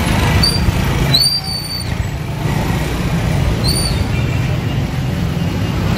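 Motorcycle tricycle engines running at low speed close by, a steady low rumble, with three short high squeals, the longest about a second in.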